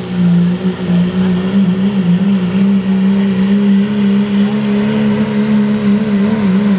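Turbocharged diesel pickup truck engine held at high revs under full load while pulling a weight-transfer sled, a loud steady drone that wavers slightly in pitch.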